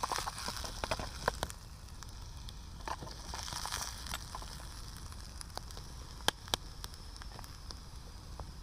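Wood campfire crackling with scattered sharp pops, over a steady sizzle of diced potatoes frying in a pot hung above the flames.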